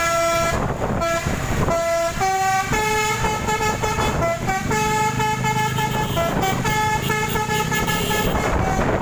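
Bus basuri telolet air horn playing a tune: a string of loud pitched notes stepping up and down, some short and some held. A low rumble sits beneath from about halfway.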